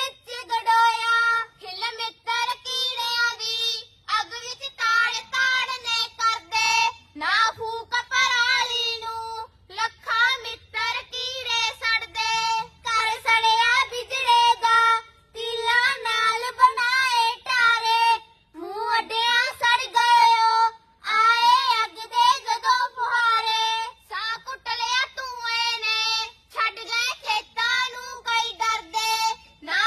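Young girls singing a Punjabi song together without instruments, in short phrases separated by brief pauses.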